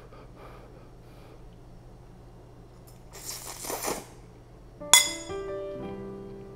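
A mouthful of spaghetti slurped in with a short sucking noise about three seconds in. About five seconds in, a plucked acoustic guitar rings out sharply and starts a few held notes of music.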